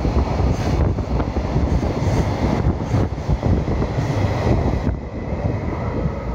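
Container wagons of a passing freight train rolling by at speed, a steady rumble of wheels on the rails. About five seconds in the noise drops off as the last wagon clears.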